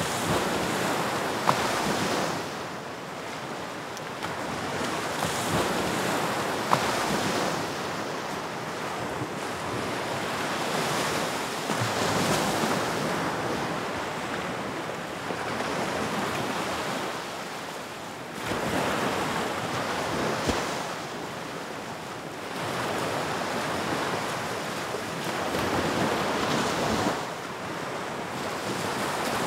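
Sea surf on a sandy beach: waves breaking and washing in, the noise swelling and ebbing every few seconds, with a couple of brief clicks in the first several seconds.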